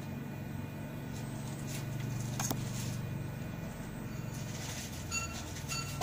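Small brushed DC motor under Arduino PWM speed control running with a steady hum. The hum swells for the first couple of seconds and then eases off as its speed is stepped with push buttons. A few faint clicks come in the middle, and high steady tones join near the end.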